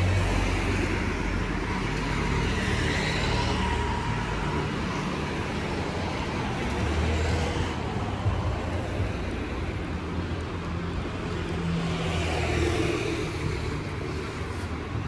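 City street traffic: several cars passing one after another over a steady low engine rumble, each rising and fading as it goes by.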